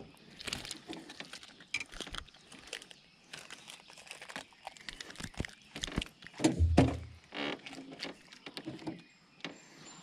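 Scattered clicks and rustles of hands handling a smallmouth bass and working a soft-plastic crawfish lure out of its mouth, with one louder, duller knock about two thirds of the way through.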